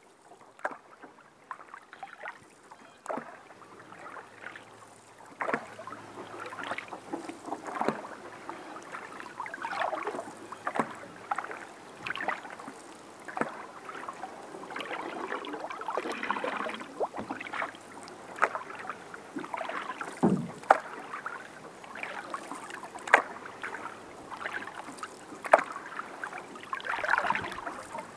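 Canoe paddling: a wooden paddle dipping and pulling through calm river water, with irregular small splashes and drips every second or so. One dull thump comes about two-thirds of the way through.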